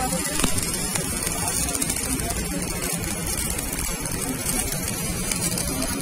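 Stick (MMA) welding arc from a Rhino 120 A inverter welder burning steadily: an even hiss with fine crackles throughout.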